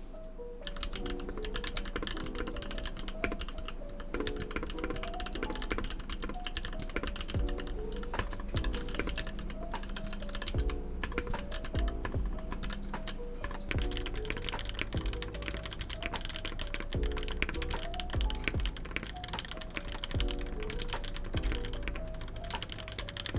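Fast, continuous typing on a Keychron K6 mechanical keyboard with Gateron CJ linear switches: a dense run of irregular key clacks that starts about half a second in, with background music playing under it.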